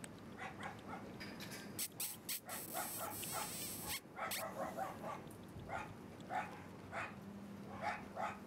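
A six-week-old Shiba Inu puppy giving short, high yips and whimpers several times. A few clicks and a brief rustle come about two seconds in.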